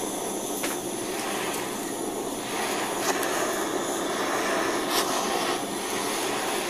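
Handheld gas-canister blowtorch burning with a steady hiss, its flame heating the aluminium crankcase of a D8 moped engine so that a stuck gear will come free together with its bearing.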